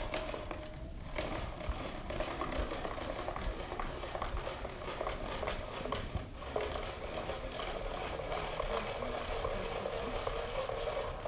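Hand-cranked spiralizer cutting a broccoli stem into thin julienne strands: steady crunching and clicking as the crank turns, with short breaks about a second in and again around six seconds.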